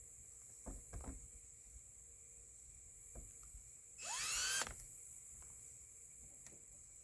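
Power drill run briefly about four seconds in, its motor whining up in pitch for under a second, after a few light knocks.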